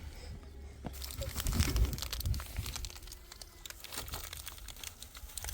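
Crinkling and rustling of handled material with many small crackles, loudest from about one to two seconds in.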